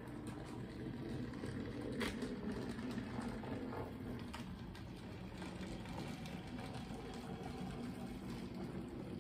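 Mantua General model steam locomotive running along the track, its replacement can motor and gearing humming steadily. A couple of sharp clicks come about 2 and 4 seconds in.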